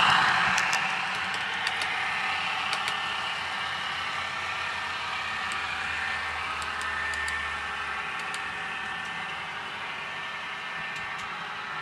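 A sound-equipped HO model diesel railcar running on the layout: a steady running noise with light clicks over the rail joints, fading as it moves away.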